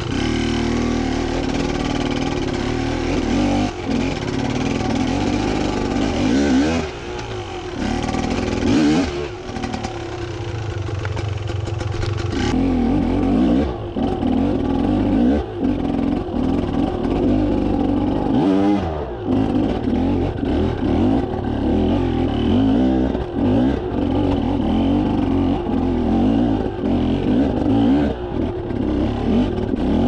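Beta enduro motorcycle engine under load on rocks, revved in repeated throttle bursts whose pitch climbs and drops, with brief dips where the revs fall away, clearest about seven, nine and nineteen seconds in. Light clatter runs under the engine throughout.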